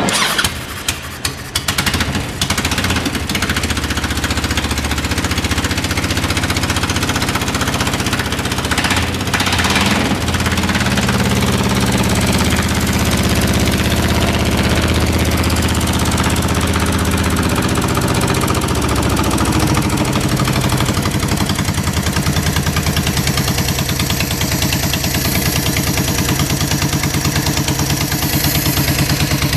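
2004 Honda VTX1300's V-twin engine running on a start-up test: uneven for the first couple of seconds, then idling steadily with an even, pulsing beat.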